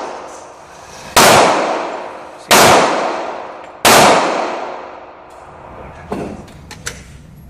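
Three loud rifle shots about a second and a quarter apart, each followed by a long echoing decay. Near the end come a couple of faint metallic clicks.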